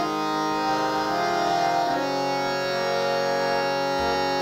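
Instrumental interlude in a kirtan chant: sustained held notes with no singing or drums, stepping to new pitches about half a second and two seconds in.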